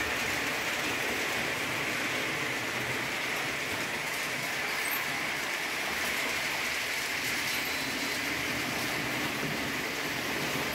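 Märklin model trains running on the layout: a steady rushing noise of small metal wheels rolling on the track.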